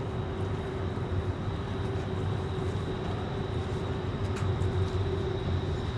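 A steady low mechanical drone, like a running vehicle engine, with a constant hum tone over it.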